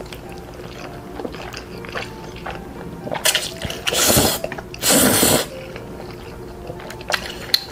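Noodles of jjajangmyeon (black bean noodles) being slurped from chopsticks, three loud slurps of about half a second each in quick succession past the middle.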